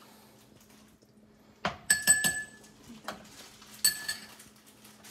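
A metal utensil clinking against a stainless-steel pot while stirring pickling vegetables: a quick cluster of sharp, ringing clinks about two seconds in, then two more near four seconds. A faint steady hum runs underneath.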